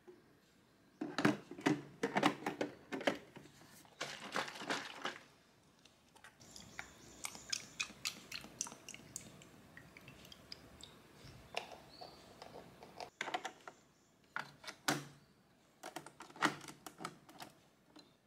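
Clicks, knocks and rustling of hands handling an illy capsule coffee machine, its hinged lid, a glass and a carton. In the middle, oat milk is poured from the carton into the glass.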